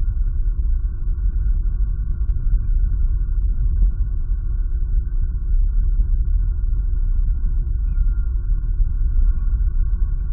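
Steady low rumble with a faint constant hum above it, picked up by an outdoor nest-camera microphone.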